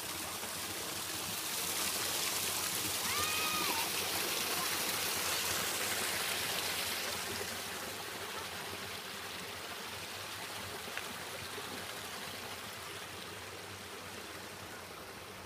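Small stream running over rock ledges and little cascades: a steady rush of water that grows fainter after about seven seconds. A single short high call sounds about three seconds in.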